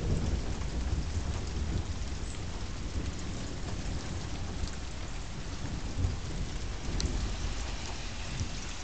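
Thunderstorm: rain falling steadily with scattered drop ticks, under a low rumble of thunder that is loudest at the start and dies away within the first second or so.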